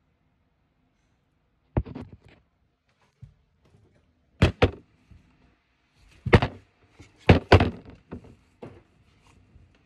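Sharp knocks and thuds, about ten in irregular clusters with short gaps between, as a phone is handled and knocked against a table. The loudest knocks come about six to eight seconds in.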